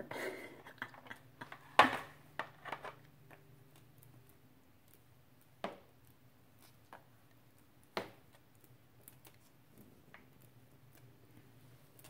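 Scattered sharp clicks and taps from an African grey parrot's beak on the mirror, marble counter and plastic toys: the loudest about two seconds in, a short cluster just after, and single taps at about six and eight seconds, over a faint steady low hum.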